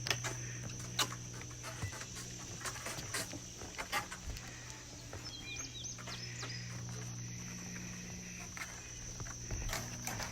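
Outdoor woodland ambience: a steady high-pitched insect drone, scattered knocks and clicks, and a few short bird chirps about five and a half seconds in.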